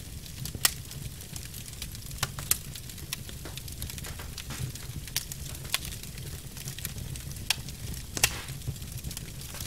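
Log fire crackling, with irregular sharp pops, a handful of them louder than the rest, over a low steady rumble.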